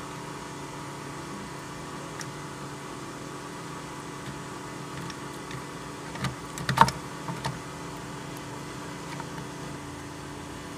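Clutch plates and pressure plate of a 1982 Honda GL500 clicking and clacking against the clutch basket fingers as the assembled clutch pack is worked into the basket by hand. A few faint ticks, then a quick cluster of sharper metal clacks a little past halfway, over a steady low hum.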